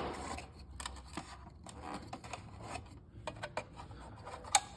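Hands working on an upright vacuum's brush roll and belt area: scattered small plastic clicks and handling rustles, with one sharper click about four and a half seconds in.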